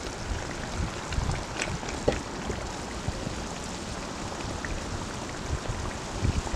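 Wind rumbling on the microphone over a steady outdoor hiss, with a few faint clinks of a metal serving spoon as chicken stew is lifted from a cast-iron pot onto a glass plate.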